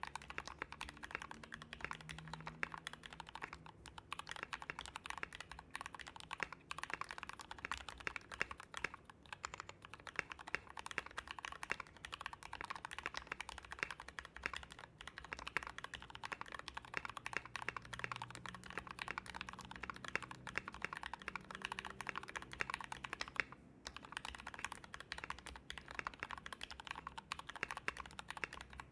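Continuous typing on a mechanical keyboard in an acrylic Tofu case fitted with Gateron Yellow linear switches: a fast, steady stream of keystrokes with a few short pauses.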